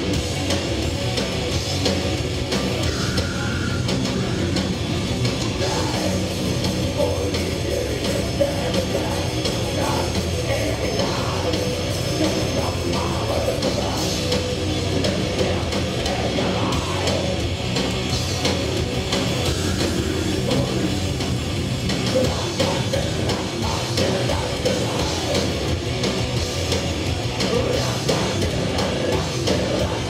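Thrash metal band playing live: distorted electric guitars, bass and drum kit at full volume, steady and unbroken, heard from the audience floor of a club.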